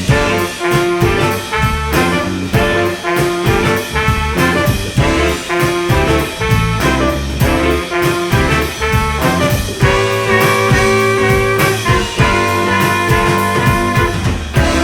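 Live band playing an instrumental funk-jazz passage: brass horns over a steady drum and bass beat, with long held horn notes about ten seconds in.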